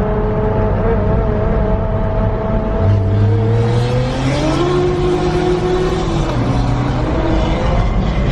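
Turbocharged car engine running under load. Its pitch climbs about four seconds in as it accelerates, then holds steady.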